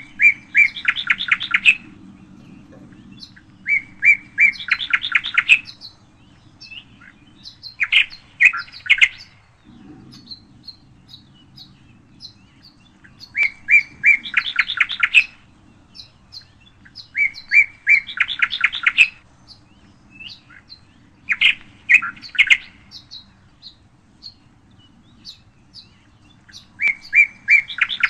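A songbird repeats the same short song phrase about seven times: a few clear notes that run into a quick trill, each phrase lasting one to two seconds. Fainter high chirps come between the phrases, over a faint low hum.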